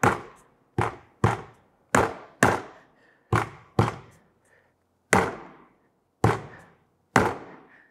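A fist thumping the inside floor of an empty Pelican 1750 hard plastic case, about nine blows at uneven half-second to one-second intervals, each dying away quickly. The case is being pounded down onto screw heads on the roof rack so they mark the drill points.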